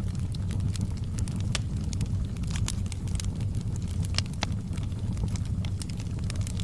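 Fire crackling: irregular sharp pops and snaps, several a second at times, over a steady low rumble of the flames.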